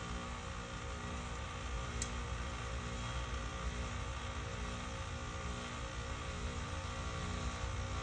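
Outdoor heat pump unit in its defrost cycle: the compressor hums steadily, a low drone with several even tones, level and unbroken throughout.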